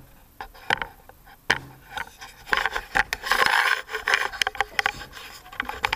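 Handling noise on a phone recording: fingers rubbing, tapping and clicking on the phone, with a longer stretch of rubbing and scraping a couple of seconds in.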